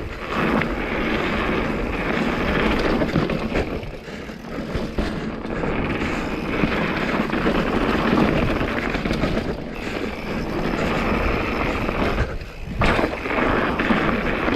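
Mountain bike riding down a dirt and rock trail at speed: wind rushing over the camera microphone mixed with tyres rolling over the ground and the bike rattling, easing off briefly a few times.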